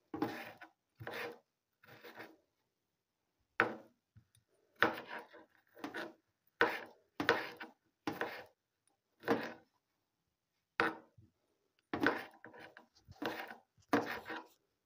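Kitchen knife cutting tomatoes on a cutting board: about twenty separate sharp chops at an uneven pace, with a short pause about two-thirds of the way through and quicker cuts near the end.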